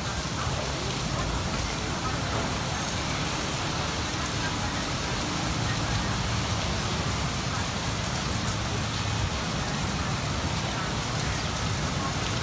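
Steady rain falling on concrete rooftops, an even hiss with a low rumble underneath.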